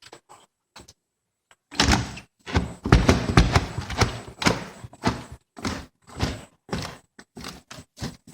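Snowbound door being forced open: a few light clicks of the latch, then a run of loud, irregular thuds, knocks and rattling as it is shoved against packed snow.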